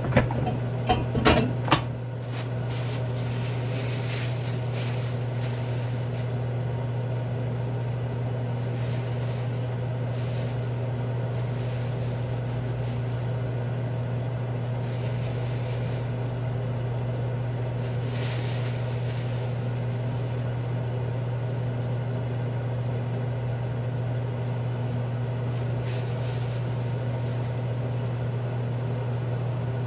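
Steady low mechanical hum of a kitchen appliance motor, with a few sharp clicks and knocks in the first two seconds.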